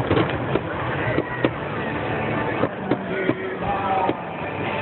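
Fireworks going off in a string of sharp bangs and crackling bursts, several a second at times, with music playing behind.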